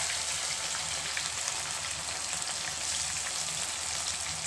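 Marinated boneless chicken pieces deep-frying in a pan of hot oil: a steady sizzle made of many small crackling pops.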